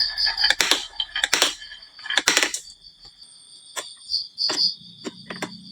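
Marbles clicking and clattering on a wooden marble-run slope and into toy trucks, in irregular sharp clacks. A steady, pulsing high-pitched tone runs beneath them.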